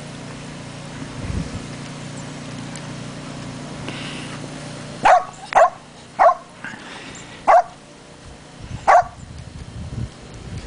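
A dog barking five times in the second half, short sharp barks about a second apart.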